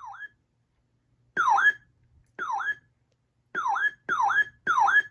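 RadioShack 12-996 weather radio's alert siren sounding in short bursts, each a quick sweep down in pitch and back up, at uneven intervals with three in quick succession near the end. This is the radio's siren test.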